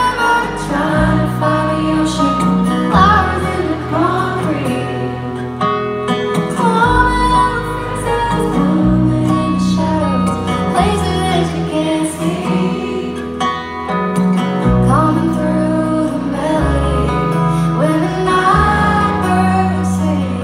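Live country band performance: a woman singing lead over acoustic guitar, banjo and upright bass, with a low bass line changing notes every few seconds.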